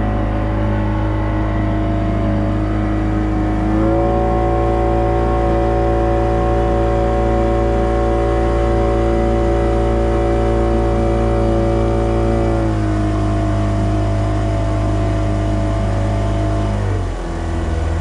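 A small boat's engine running under way, loud and steady; it speeds up about four seconds in, eases back about two-thirds of the way through, and drops again just before the end.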